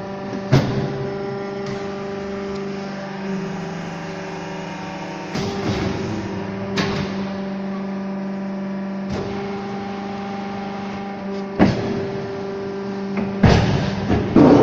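Fly ash brick-making machine running: a steady motor hum with several sharp clunks from the press and mould, two close together about six seconds in and a cluster near the end.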